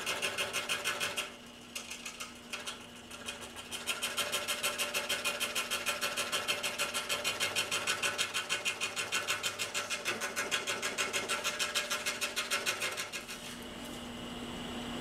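Scroll saw blade reciprocating through a sheet of polycarbonate, a fast, even mechanical chatter over a steady motor tone. The cutting sound drops away about a second in and picks up again a couple of seconds later. Near the end it gives way to a quieter, steady hum as the cut is finished.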